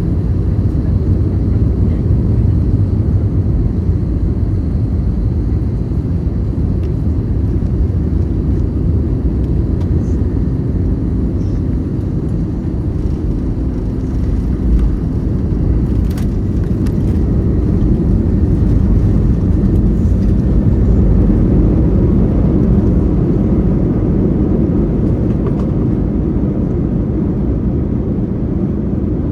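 Steady low rumble of an Airbus A321 airliner's engines and airflow, heard inside the passenger cabin. It swells a little past the middle.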